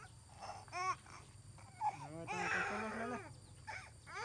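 A baby fussing and crying in several short, high, wavering cries.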